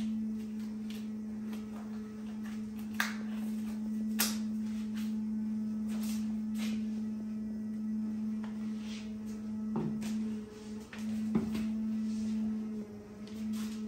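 A steady low electrical hum at one pitch runs throughout. It is dotted with a few light clicks and taps of hands handling things on a workbench. Near the end come two duller knocks, and the hum briefly breaks.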